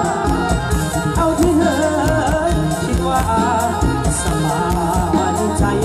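Live Thai band music played through a large outdoor concert sound system, with a heavy, steady bass, a regular drum beat and a wavering lead melody over it, recorded on a mobile phone.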